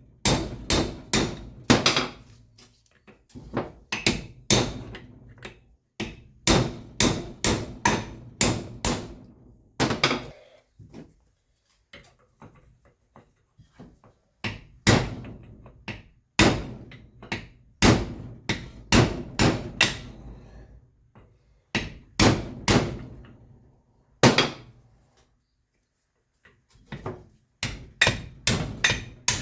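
Hammer blows struck in quick runs of several strikes, about two to three a second, with short pauses between the runs, in the course of replacing the rear axle seals on a Kubota B1600 tractor.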